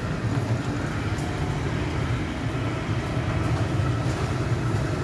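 Electric hair clippers buzzing steadily with a low, even hum.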